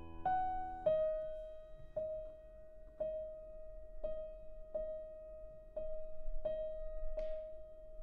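Grand piano playing one high note over and over, about once a second with slightly uneven spacing, each strike left to ring. A chord dies away just before the repeats begin.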